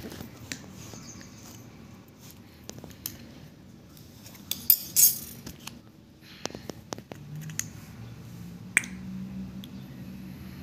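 Small handling noises of a plastic paint tube being opened and handled over a steel bowl: scattered clicks and rustles, two louder crackling sounds about five seconds in, and a sharp click with a brief ring near the end.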